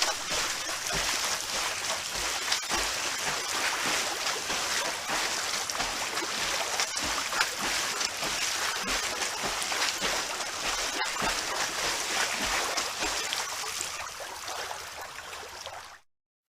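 Water splashing and sloshing from swimming in a pool, a steady churn of small splashes. It fades a little and then cuts off to silence near the end.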